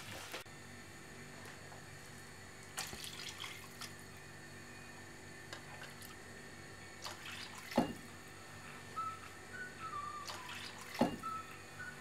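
Water heating in a kadai on a gas stove after being poured over fried onions and dal: faint watery sounds with a few small clicks and drips. A faint wavering whistle comes in during the last few seconds.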